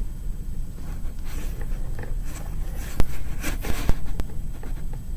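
A few short, sharp clicks of a pencil touching a clear plastic cup while nudging the floating staples, about three to four seconds in, over a low steady rumble.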